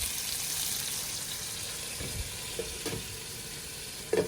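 Potatoes frying in hot oil in a pan, a steady sizzle, with a few light knocks and a short louder clatter near the end.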